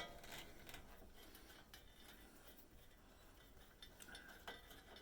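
Near silence with a few faint light clicks: small nuts and washers being threaded back onto the heating element's terminal studs.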